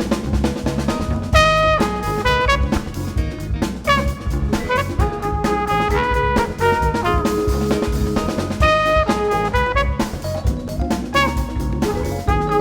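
Jazz quintet playing live: a brass horn plays a melody of held notes over drum kit and electric bass.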